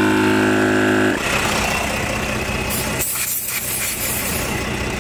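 Portable tire-inflator air compressor running with a steady motor hum; it stops about a second in. A hiss of air follows near the middle, as the hose chuck works at a tire valve.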